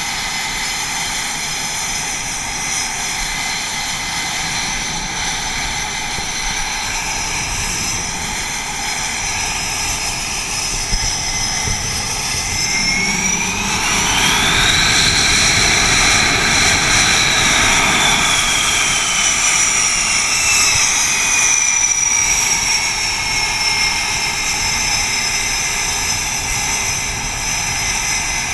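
F/A-18 jet engines whining steadily on a carrier flight deck. About twelve seconds in, a louder whine rises sharply, holds for a few seconds, then slides slowly back down.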